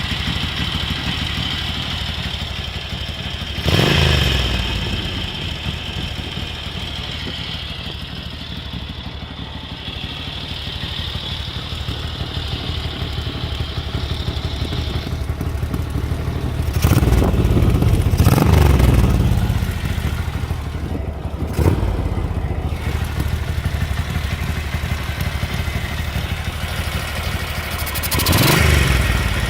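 Ducati 900SS bevel-drive air-cooled 90° V-twin idling through new-old-stock Conti exhausts. The throttle is blipped briefly about four times, and there is one sharp snap about two-thirds of the way through. The bike is freshly restored and running on a new ignition, with its carburettors still untouched.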